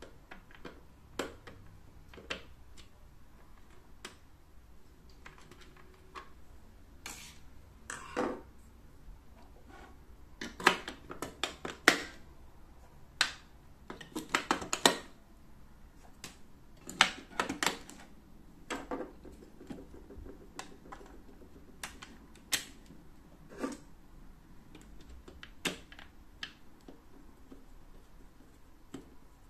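Irregular small clicks, taps and rattles from the battery compartment of a cauldron lamp: a screwdriver working the cover screw, and batteries being fitted and pressed into their contacts, with a busier cluster of clicks in the middle.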